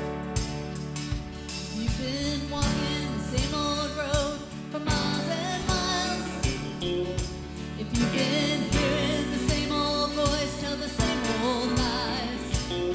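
Gospel-style band music with a steady beat, guitar in the mix, and a singing voice with vibrato coming in about two seconds in, without clear words.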